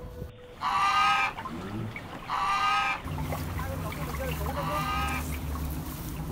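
A goose honking three times, each call about half a second long and level in pitch, a couple of seconds apart.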